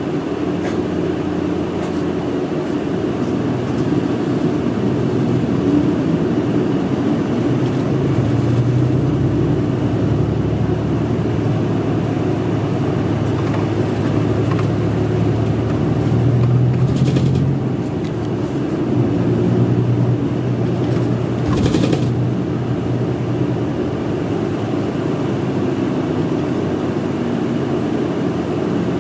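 A city bus's diesel engine running inside the passenger cabin, swelling and easing as the bus pulls away and slows in traffic. About halfway through there are two short hisses a few seconds apart.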